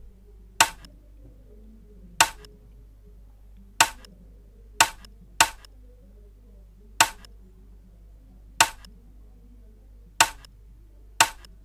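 Drum-kit stick sample played back by itself in a sparse, syncopated reggae pattern: single sharp clicks, nine in all, mostly evenly spaced with a few quicker pairs.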